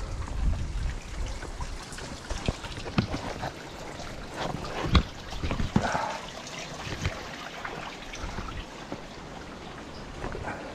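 Water trickling and splashing from a small waterfall in a mountain stream, steady throughout, with scattered clicks and knocks, the loudest about five seconds in.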